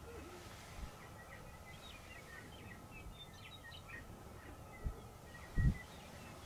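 Birds calling in a quick scatter of short, high chirps, with two brief low thumps about five seconds in, the second the loudest.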